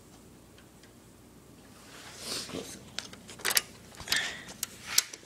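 Plastic parts of a disassembled Xbox 360 console being handled and fitted back together: after a quiet start, a run of sharp plastic clicks and short rustles from about two seconds in.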